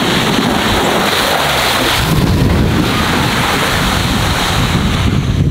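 Mitsubishi Triton pickup driving hard through deep mud and water. Its engine noise mixes with the churn and spray of its tyres, and wind buffets the microphone, all as one loud, steady rush.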